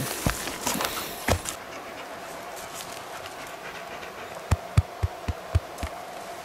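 Footsteps crunching and rustling through dry forest leaf litter for about the first second and a half, then a faint steady hum. About four and a half seconds in, six soft low thumps follow quickly, about four a second.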